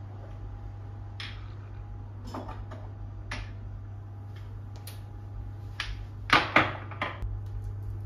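Glass spice jars being taken from a kitchen drawer and handled: scattered light clinks and knocks, the two loudest close together a little after six seconds, over a steady low hum.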